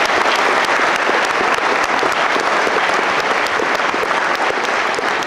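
Audience applauding: steady, dense clapping that follows the end of a speech.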